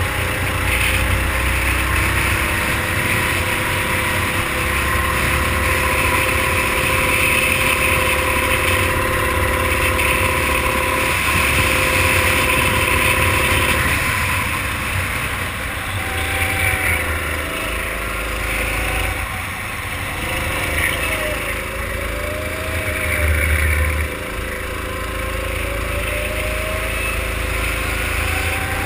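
Racing kart engine running hard at high revs, then its pitch dropping and climbing again several times as the kart brakes for corners and accelerates out of them.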